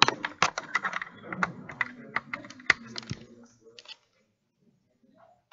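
Clicking clatter of a computer keyboard, irregular sharp keystrokes several a second that stop about three and a half seconds in.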